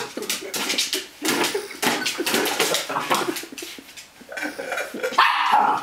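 A plastic box clattering and knocking irregularly on a wooden floor as a Norfolk Terrier pushes and bites at it, with a short, louder vocal sound near the end.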